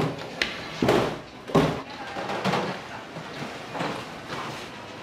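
Several knocks and thuds of kitchen work at a steel worktable, stainless-steel bowls of raw chicken being handled, the two heaviest about one and one and a half seconds in.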